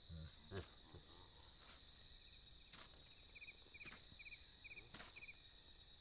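Steady high-pitched drone of insects, with a faint chirp repeating every half second or so in the middle. Soft footsteps on a dirt path about once a second as a person walks up.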